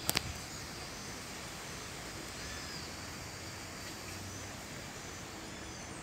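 Steady forest ambience with faint, short bird calls now and then. Two sharp taps in quick succession right at the start are the loudest sound.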